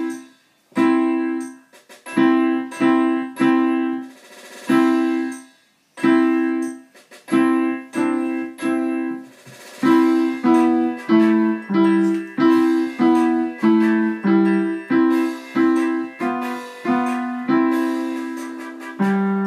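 Digital piano played by a child learner: a simple march of struck two-note chords. At first the chords come one at a time with pauses between them, then from about halfway they follow more steadily, with a lower note moving under them.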